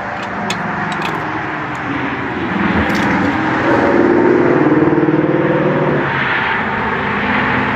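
Car engine running with road noise, swelling louder around the middle and then easing off.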